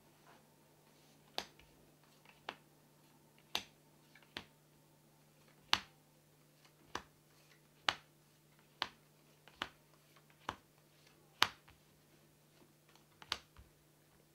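Playing cards being laid down one at a time on a tabletop: about a dozen short, sharp clicks roughly a second apart, over a faint steady hum.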